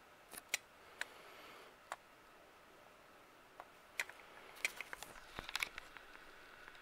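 Faint handling noise from a handheld camera: scattered sharp clicks and taps of fingers shifting on the camera body, a few single ones at first and a quick run of them in the second half.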